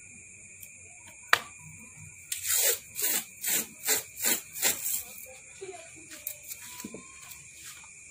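A sharp click, then about six quick rasping strokes, roughly two and a half a second: something being scraped or rubbed by hand at a transformer-winding bench. A few light ticks follow.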